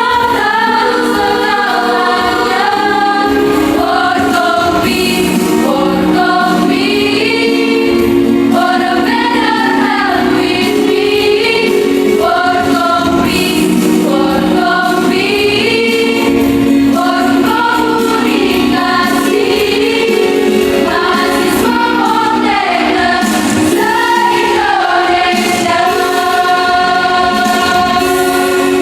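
Choir singing a jingle in Indonesian, several voice parts together in harmony, ending on a long held chord.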